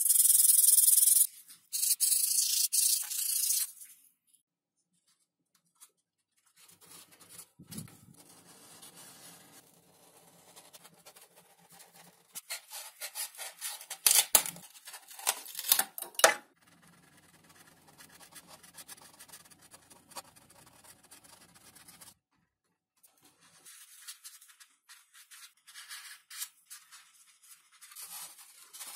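Hand work on a foam model-plane build: two loud bursts of hissing rubbing in the first four seconds, then after a short pause quieter, uneven scraping and rubbing, with a few sharp clicks about halfway through.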